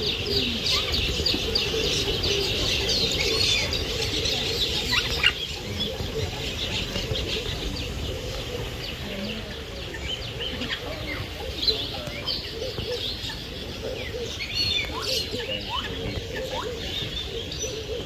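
Many birds chirping and calling together, a dense chatter that thins out after about six seconds into scattered single calls.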